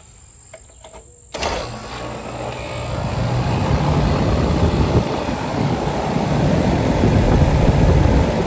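Older Rheem R22 central AC condenser starting up as power is restored at its pull-out disconnect. A few small clicks come first, then about a second and a half in the unit kicks on at once, and its condenser fan and compressor run up to a loud, steady running noise over the next couple of seconds. The compressor is drawing current, so the unit runs instead of tripping its breaker.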